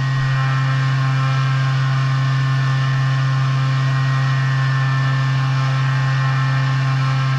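CNC mill spindle running at 8,000 RPM with a 2-flute ball end mill cutting iron rod: a loud, perfectly steady low hum with a stack of higher ringing tones above it.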